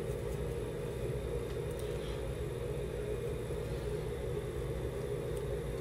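Steady low background rumble with a faint constant hum.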